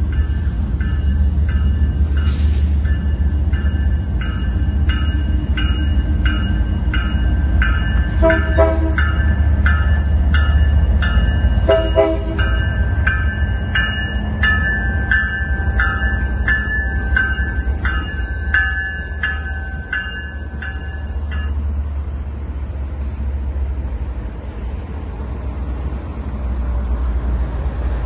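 BNSF diesel freight locomotives passing close by, their engines a deep steady rumble. A bell rings about twice a second over it and stops abruptly about 21 seconds in. Two short horn blasts sound around 8 and 12 seconds in.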